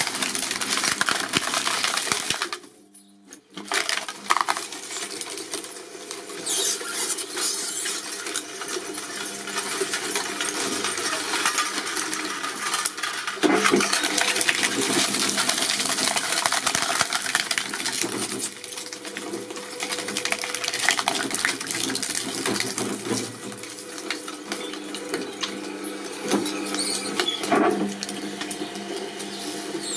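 A machine running, with dense clicking and clattering over a steady hum; the sound drops out briefly about three seconds in.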